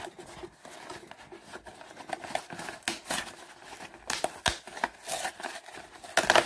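Cardboard mailing box being handled and opened by hand: irregular scrapes, taps and rustling of cardboard, with a sharp click partway through and the loudest knocks near the end.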